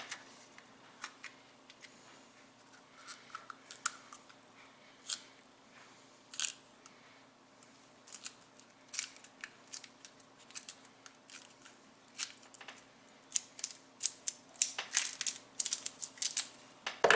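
Gloved hands handling small plastic tubs of two-part epoxy putty and pinching portions out of them: scattered light clicks and taps, coming thicker in the last few seconds.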